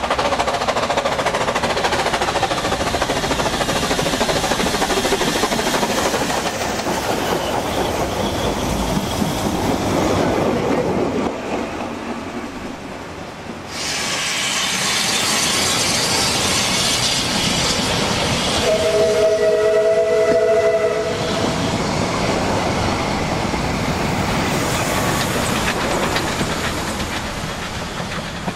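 Narrow-gauge steam locomotives working out of a tunnel, with exhaust, steam hiss and rail noise, the sound changing abruptly about halfway through. A little past the middle a steam whistle of several tones sounds for about two seconds.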